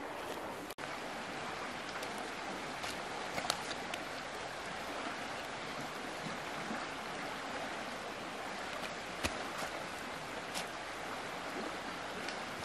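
Flowing river water rushing steadily, with a few sharp clicks.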